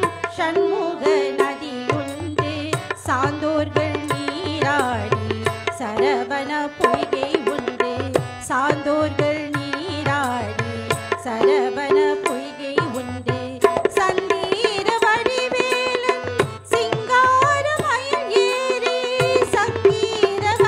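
A live Tamil devotional song: tabla drumming a steady rhythm under harmonium and a sung melody with ornamented, wavering pitch.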